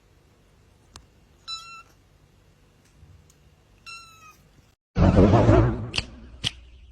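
Cat giving two short, high, slightly falling meows. Near the end a sudden, much louder burst of dense sound starts, with two sharp cracks in it.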